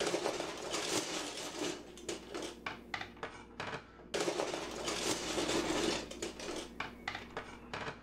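Metal cutlery and kitchen utensils clinking and clattering as they are rummaged through in a drawer and set down on a counter, many small knocks in quick succession over a steady low hum, with a brief break about four seconds in.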